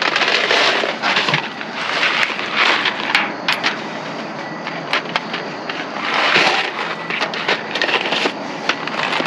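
Rummaging through a dumpster: cardboard boxes and bags of trash rustle and crunch in irregular surges, with sharp clicks and knocks as boxes are pulled out and dropped.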